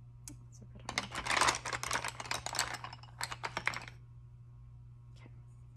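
Wooden colored pencils being handled, rattling and clicking against one another and the table in a dense run of clicks lasting about three seconds.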